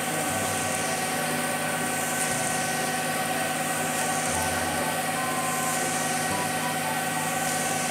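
Concrete mixer truck's diesel engine running steadily, with a thin constant whine over it, while the truck discharges concrete down its chute.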